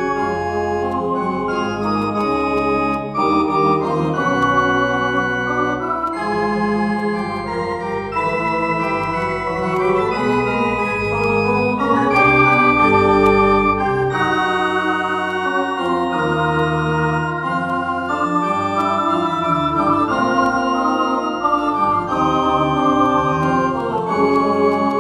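Instrumental organ music: held chords over a bass line that moves every second or two, at a steady volume.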